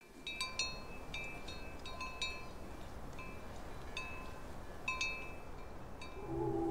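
Small metal chimes tinkling in irregular clusters, the same few bright pitches struck and ringing briefly, over a faint steady hiss. Near the end a low held musical tone comes in.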